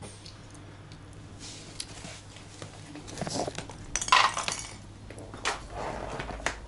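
Light clinks and knocks of dishes and cutlery, with a brief louder scrape or rustle about four seconds in.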